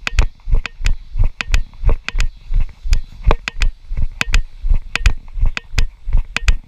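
Regular thumps and clicks, about three a second: a handheld GoPro and its housing knocked and jostled with each stride as it is carried along on foot.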